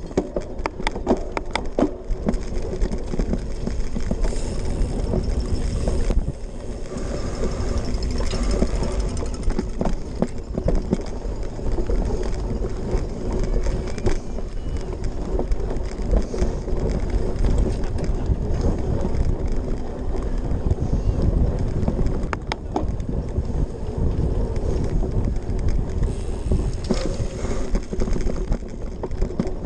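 Cyclocross bike ridden hard over a bumpy dirt track: knobby tyres rumble on the dirt while the bike rattles and clatters over the bumps, with a steady hum beneath. The clatter is busiest at the very start.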